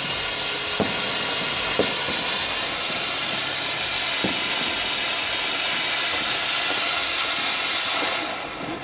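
Firework fountain spraying sparks with a steady hiss and a few faint crackles, dying away near the end as it burns out.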